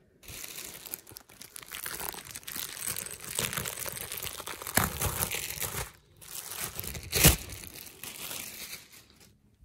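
Clear plastic garment bag crinkling and rustling as it and the T-shirt inside are handled. There is a brief pause about six seconds in, and sharper crackles at about five and seven seconds in, the second the loudest.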